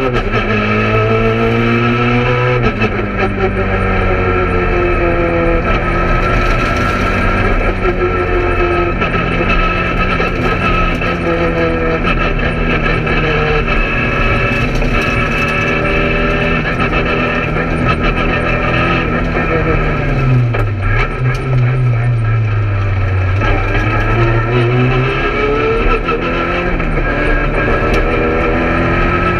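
Peugeot 208 R2 rally car at full stage pace, heard from inside the cabin: its 1.6-litre four-cylinder engine revving hard and climbing up through the gears. About two-thirds of the way through, the revs fall and stay low for a few seconds, then climb again near the end.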